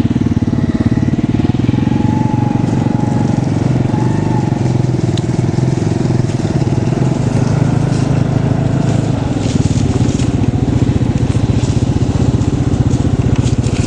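Vehicle engine running steadily underway, a continuous low rumble that holds level throughout.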